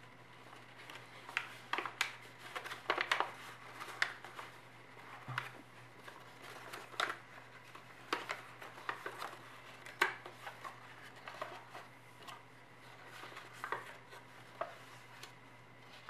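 A sheet of origami paper being folded, creased and pulled into shape by hand: irregular crisp crackles and rustles of stiff paper.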